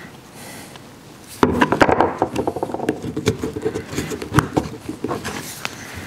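Schwintek slide-room motor being pried apart by hand, its stubborn housing not wanting to come off. About a second and a half in, a busy run of clicks, knocks and scraping starts as its metal housing and end parts rattle and bump against each other and the plywood board.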